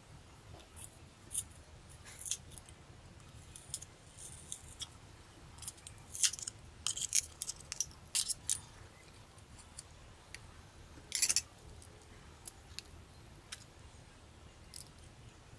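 Scattered small clicks and rattles of the plastic housing and cover of a Nikon Coolpix AW110 camera being handled and worked apart, with a quick run of sharper clicks in the middle and another burst about eleven seconds in, over a faint low hum.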